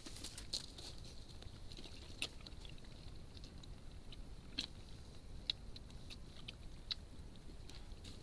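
Wild boar piglets feeding at a water hole right by the microphone: irregular small clicks and crunches of chewing and rooting, over a steady hiss.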